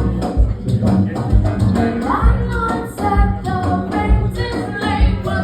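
Live band music with a steady beat, bass thumps about once a second, percussion and a sung melody line in the middle.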